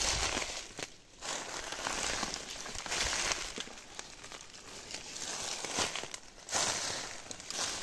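Footsteps crunching and crackling through dry melaleuca leaf litter, one step after another at a walking pace.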